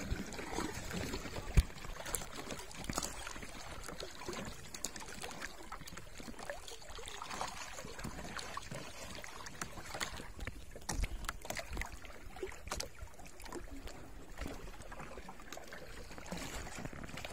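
Sea water lapping and sloshing against a small boat's hull, with scattered light knocks and one sharper knock about one and a half seconds in.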